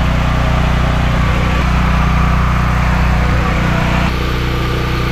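An engine aboard a fishing boat running steadily at constant speed, a low even drone. It shifts and becomes a little quieter about four seconds in.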